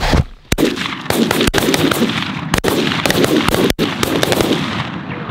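Volley of shotgun blasts, about five sharp shots over four seconds, fired by goose hunters, over a steady loud din.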